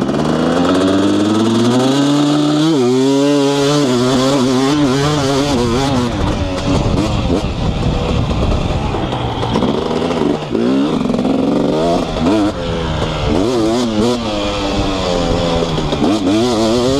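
2018 KTM 250SX single-cylinder two-stroke engine with an FMF Powercore 2 silencer, pulling hard in first gear off a holeshot start. Its pitch climbs steadily for nearly three seconds until a shift up, then keeps rising and falling as the throttle is worked around the track.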